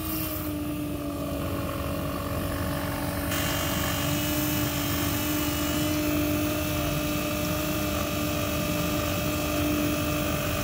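12-volt macerator pump running steadily while pumping camper waste tank sewage through a hose: an even motor hum with a hiss over it that gets stronger about three seconds in.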